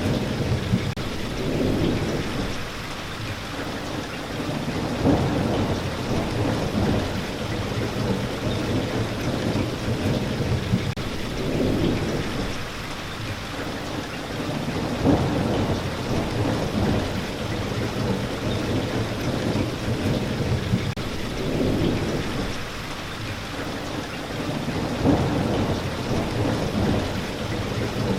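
Steady rain falling in a thunderstorm, with low thunder rumbling again and again beneath it every few seconds.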